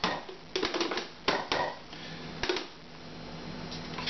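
Kitchen clatter: a few sharp knocks and clicks of utensils against containers during the first half, then a faint steady low hum.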